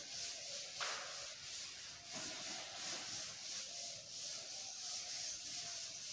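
A duster rubbing over a chalkboard as the writing is wiped off, a scratchy hiss in repeated back-and-forth strokes. A single knock sounds about a second in.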